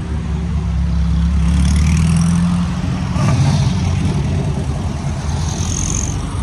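Air-cooled VW Beetle flat-four engines driving past one after another: the nearest car's engine is loud and steady for the first couple of seconds, then the note changes as a second Beetle passes about three seconds in.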